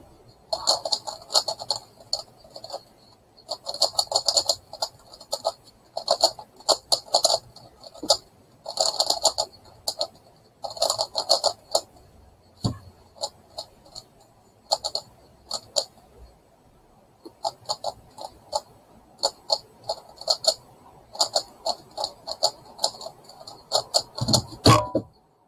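Megaminx being turned at speed: bursts of quick plastic clicking and clacking from the twisting faces, with short pauses between bursts. A heavier thump comes near the end.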